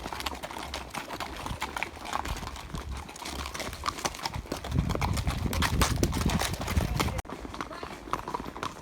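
Horse hooves clopping in an uneven stream of knocks, with a low rumble for a couple of seconds in the middle that stops abruptly.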